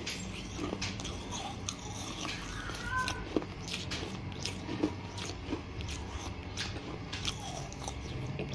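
Close-up chewing of pieces of baked clay pot and chalk paste, heard as irregular crisp crunches and clicks, with two louder crunches in the middle.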